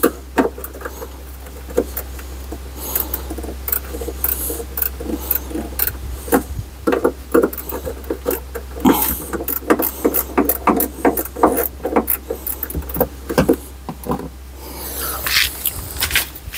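Irregular metallic clicks and knocks of a wrench being fitted and worked on nuts and bolts, over a steady low hum.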